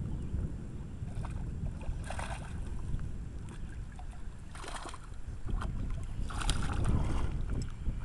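Basset hound paddling and splashing through river water, with three short spells of splashing, over a steady low rumble of wind on the microphone.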